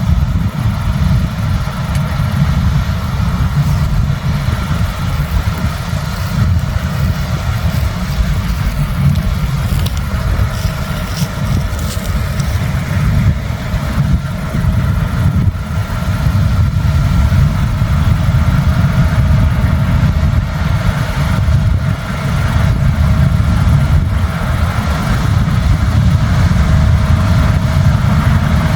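New Holland CR10.90 combine harvester running steadily while threshing barley: a deep diesel rumble with a thin, steady whine from the machinery above it.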